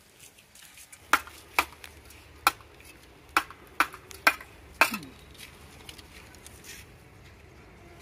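Steel mason's trowel tapping clay bricks to bed them in mortar: seven sharp metallic clinks at uneven intervals over about four seconds, then they stop.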